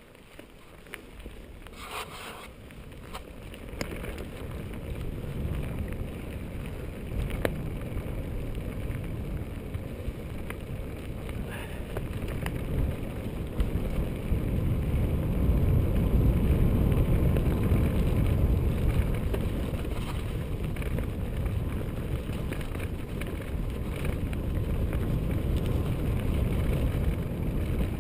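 Wind buffeting the camera's microphone while a mountain bike rolls along a dirt singletrack, a low rumble that builds louder over the first fifteen seconds or so as the bike gathers speed, with a few scattered knocks and rattles from the bike over the rough trail.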